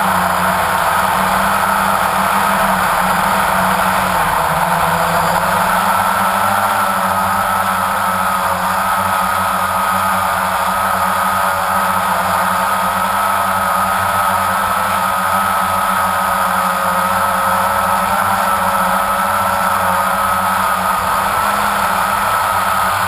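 Quadcopter drone's electric motors and propellers whining steadily, heard close through the drone's own onboard camera, the pitch wavering slightly as it flies.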